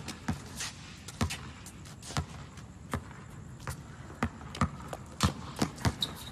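Basketball dribbled on a hard court: sharp bounces every half second or so, coming quicker in the second half, with a short squeak near the end.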